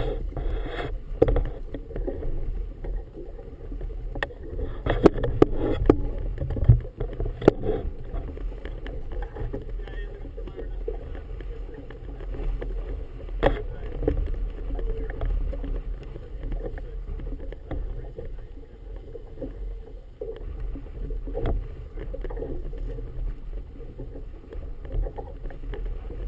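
Choppy harbour water slapping against the hull of an anchored motorboat, over a steady low wind rumble on the camera microphone. A cluster of sharp knocks comes a few seconds in, with single ones later.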